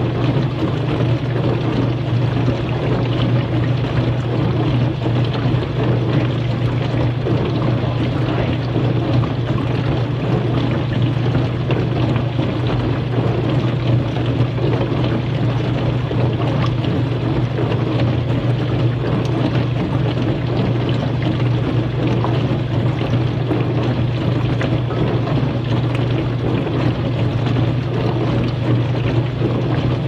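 Kenmore dishwasher running its wash cycle: a steady motor hum with water spraying inside the tub.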